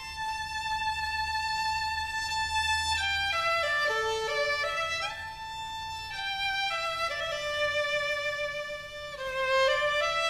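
Background music: a slow melody on a bowed string instrument, with long held notes that change every second or so.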